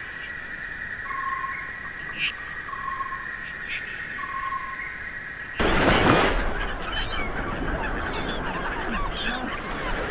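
A clamour of many birds calling at once, likely a flock of fowl, starting abruptly about five and a half seconds in and louder than what comes before. Before it, a steady high tone with short calls repeating about once a second.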